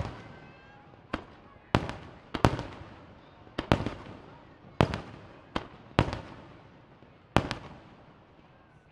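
Aerial firework shells bursting: about ten sharp booms, some in quick pairs, each trailing off in a rolling echo.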